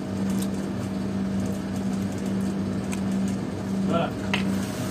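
A steady machine hum fills the background, with a few faint clicks of hand-eating and chewing on rice and curry. A brief voice sound comes about four seconds in.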